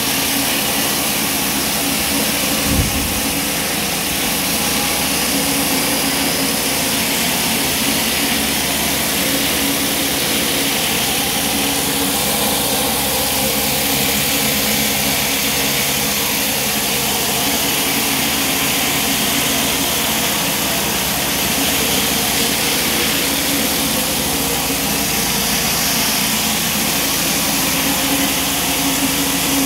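Pressure washer running with a flat surface cleaner on wet block paving: a steady, loud hiss of high-pressure water jets under the hood, over a steady mechanical hum. A brief low thump about three seconds in.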